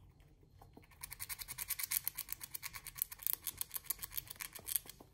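Red squirrel gnawing through the hard shell of a cedar pine nut held in its paws: a fast, even run of scraping bites that starts about a second in and stops near the end.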